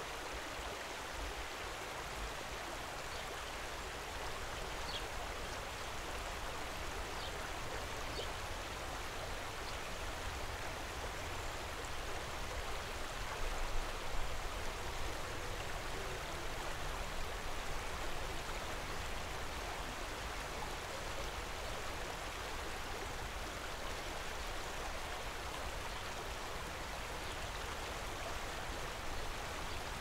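Steady rush and burble of a stream spilling over a row of small cascades into a pool, with a few faint high chirps in the first ten seconds.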